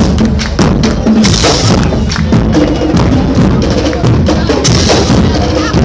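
Loud music driven by drums and percussion, with frequent sharp hits.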